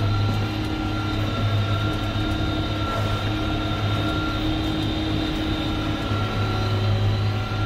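Tractor engine running steadily, heard from inside the cab: a constant low drone with a faint steady whine above it.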